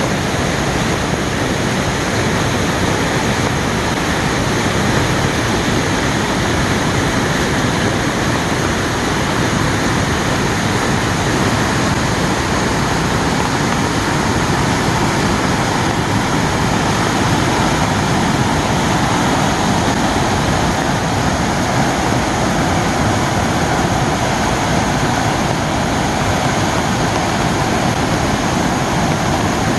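Waterfall in flood after heavy rain: a loud, steady rush of falling water.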